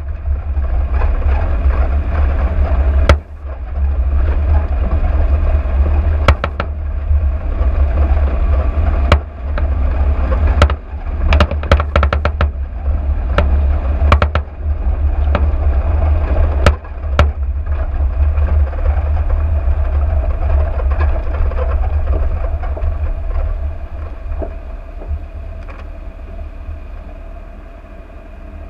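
Vehicle driving on a rough dirt track: a steady, loud low rumble with sharp knocks and rattles as it jolts over ruts, several in quick succession around the middle. It gets somewhat quieter near the end.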